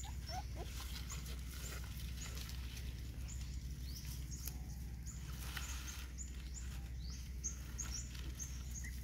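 A litter of young puppies eating from foam food containers: many small wet smacking and lapping clicks, over a steady low rumble and scattered brief high chirps.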